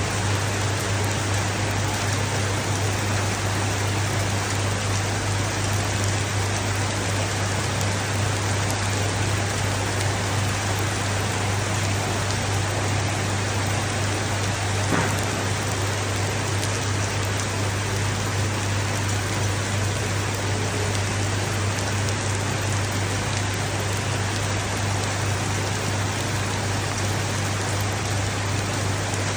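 Rain falling steadily as an even hiss, with a steady low hum underneath and a single faint tick about halfway through.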